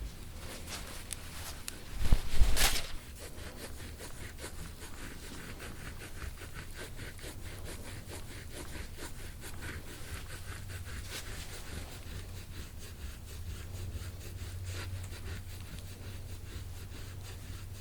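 Soft rubbing and scraping of deep-tissue work on a patient's back, made up of many small strokes and ticks, with one loud thump about two seconds in.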